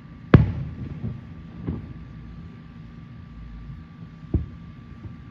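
Aerial firework shells bursting: a loud boom about a third of a second in with a rolling echo after it, a fainter boom near two seconds, and another sharp bang a little after four seconds, over a steady low rumble.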